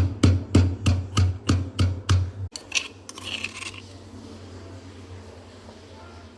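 Rhythmic knocking strokes, about three a second, from preparing mustard greens for sarson ka saag, stopping abruptly about two and a half seconds in; a faint steady hiss follows.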